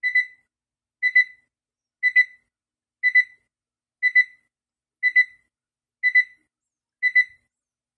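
Sharp projection alarm clock's alarm going off in beep mode: a high electronic double beep repeated about once a second.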